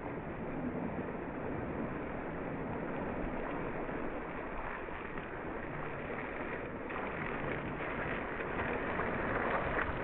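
Cyclocross bike tyres rolling and splashing through a muddy puddle, over steady wind noise on the microphone. The splashing grows louder over the last few seconds as a rider comes through the water close by.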